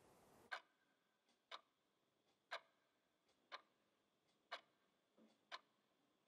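Wind-up twin-bell alarm clock ticking quietly and slowly: a sharp tick about once a second, with a fainter tick in between.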